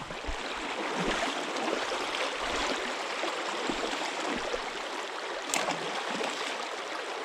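Steady rushing of shallow stream water running through a riffle, with one brief sharp click about five and a half seconds in.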